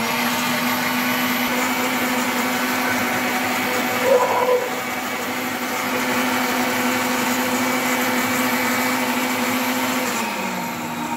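Countertop blender's motor running steadily, liquefying watermelon chunks into juice. There is a brief louder moment about four seconds in, and the motor's pitch drops slightly near the end.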